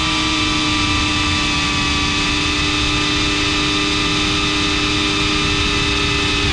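The GEPRC Cinelog 35 cinewhoop's brushless motors and ducted propellers whining at a steady, unchanging pitch, recorded on board by the drone's GoPro, with a rushing noise underneath.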